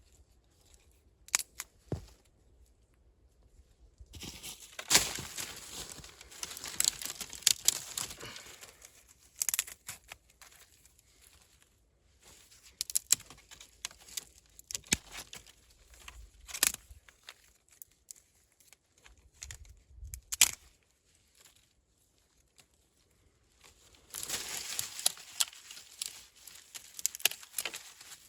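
Dry branches, bark or leaves being handled: rustling, crackling stretches lasting a few seconds, broken by single sharp snaps.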